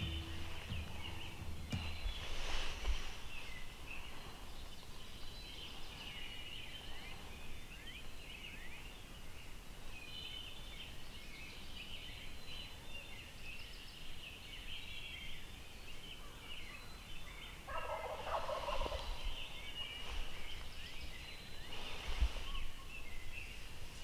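Rio Grande wild turkeys gobbling a few times, the clearest gobble about a second long some three-quarters of the way through. Small birds chirp steadily in the background.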